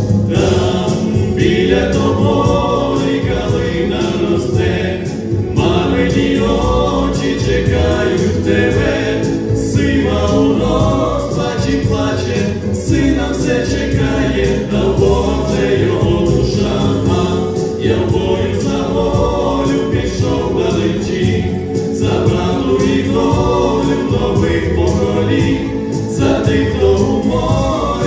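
Male vocal trio singing a Ukrainian song in harmony into handheld microphones, amplified through a sound system.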